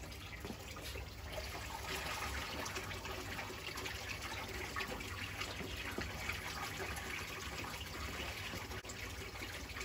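Water pumped by a brushless DC centrifugal return pump pouring steadily from a 28 mm outlet pipe into a tank, with a low hum beneath and a few light knocks. The pump is at full 130 W power, working against about 5 to 6 m of head with its outlet valve partly closed.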